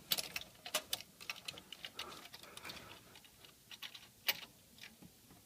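Irregular small clicks and light knocks of a CPU heatsink and its plastic and metal mounting parts being handled and fitted onto the motherboard, with one sharper click about four seconds in.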